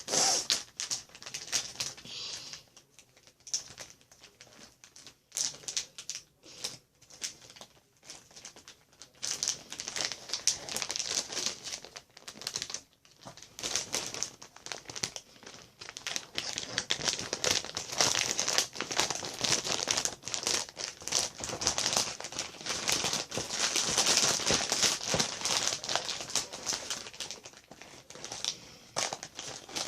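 Plastic packaging crinkling and crackling as it is handled and pulled at to get it open. It comes in scattered bursts at first, then turns dense and near-continuous from about a third of the way in.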